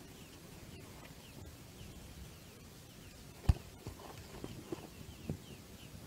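Nestling songbirds peeping faintly, short falling chirps repeating two or three times a second, while a few knocks and one sharp thump about halfway through come from handling near the nest.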